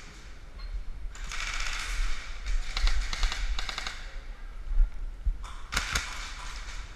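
Airsoft guns firing in rapid bursts: a fast run of sharp snapping shots from about a second in to about four seconds, then another short burst near the end.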